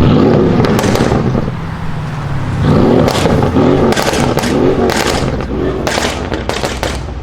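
Mercedes CLS63 AMG's RENNtech-tuned 5.5-litre twin-turbo V8 being blipped, a rev near the start and then a quick series of revs, with sharp exhaust crackles and pops as the throttle closes. The pops carry on for a moment after the last rev.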